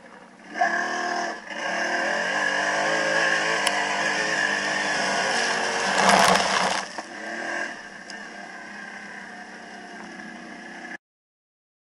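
ATV engine revving hard under load as it ploughs through water, with a heavy splash of water and mud about six seconds in. The engine then eases back to a quieter steady run, and the sound cuts off abruptly near the end.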